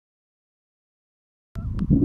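Silence, then about a second and a half in, outdoor sound cuts in suddenly: wind rumbling on the microphone and the quick patter of a running sled dog team.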